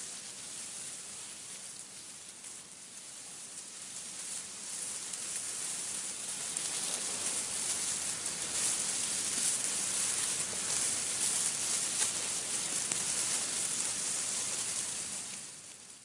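Wind rustling through tree leaves in a steady hiss that swells to a strong gust and then fades out near the end.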